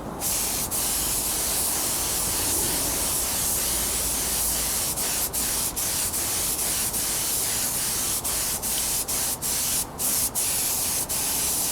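Paint spray gun hissing as it sprays green paint onto a motorcycle wheel, the spray broken by many brief pauses.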